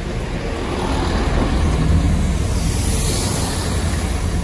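Class 166 Networker Turbo diesel multiple unit arriving at the platform close by: a steady low diesel engine drone under the rumble of wheels on the rails.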